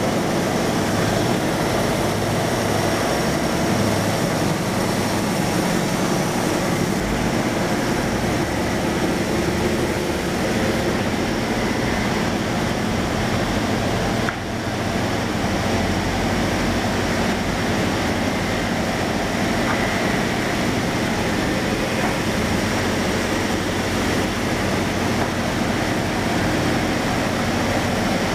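Industrial wood-sawing machine running steadily, its blades and feed rollers working timber, with a dense, even mechanical noise throughout. The level dips briefly about halfway through.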